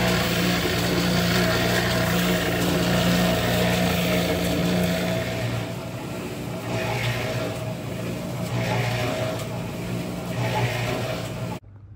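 Harbor Freight electric cement mixer running with a steady hum while wet concrete churns in the turning drum. From about halfway a swish repeats roughly every second and a half. The sound cuts off suddenly near the end.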